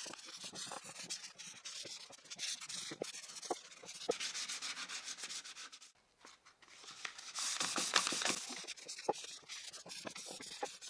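Hand sanding of a wooden piece with fine-grit sandpaper: rough rubbing strokes, with a short pause about six seconds in.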